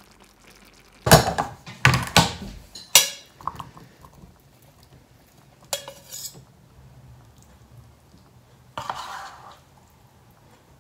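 Pots, plastic food boxes and metal cooking utensils clattering as food is dished out: a flurry of knocks and clinks between about one and three seconds in, two more around six seconds, and a short scrape near the end.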